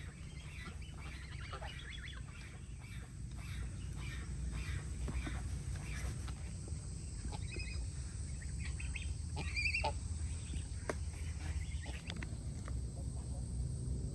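Domestic fowl calling a few times, loudest around the middle, over a steady low rumble and scattered small clicks.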